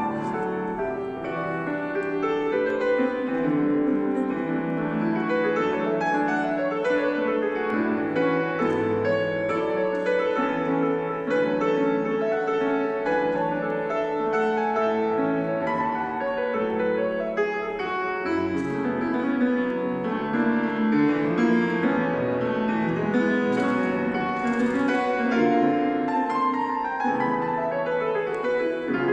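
Grand piano played solo: a continuous flow of notes and chords with no pauses.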